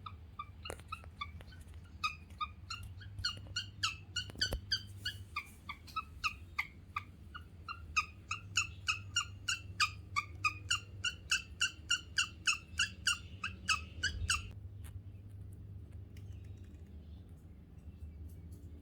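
Guinea pig chirping: a long series of short, bird-like chirps, irregular at first and then about three a second, that stops suddenly near the end.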